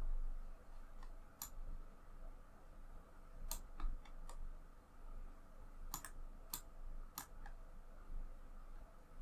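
Sharp clicks of a computer mouse and keyboard at an uneven pace, about ten in all, some in quick pairs, over a faint low hum.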